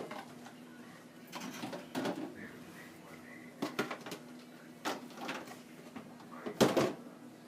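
Dishes being loaded into a dishwasher: a few separate clinks and knocks of plates and cups set into the racks, the loudest clatter near the end.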